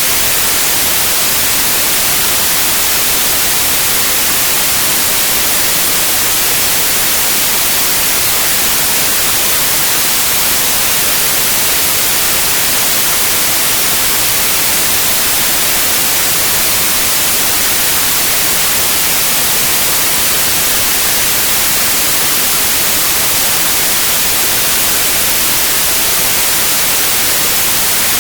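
Electronically generated white noise: a steady, loud, even hiss, brightest in the high frequencies, with no change throughout.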